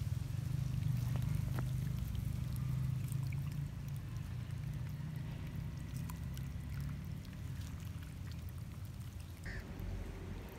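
Water running out of a garden hose into a freshly dug bed of soil, a low, steady gurgle that eases a little after a few seconds.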